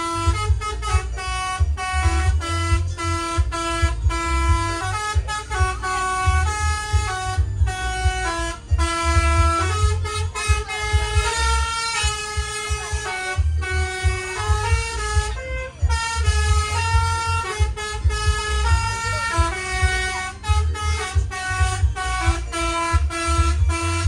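Basuri-type telolet bus horn playing a long melody without a break, its notes stepping up and down several times a second, over a low pulsing rumble.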